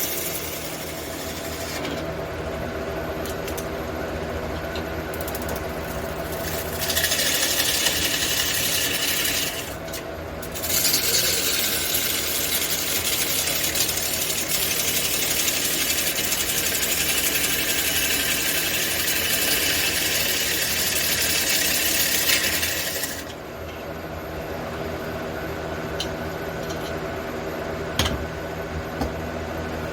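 A wood lathe's motor running steadily while a turning tool works against the spinning red cedar, giving a loud hiss about seven seconds in and again from about ten seconds until near the end, with short pauses between.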